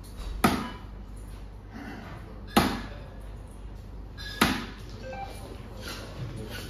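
Three soft-tip darts hitting an electronic dartboard one after another, about two seconds apart, each a sharp hit.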